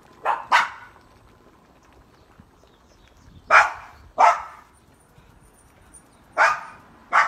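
Dog barking: six loud, short barks in three pairs, a few seconds apart.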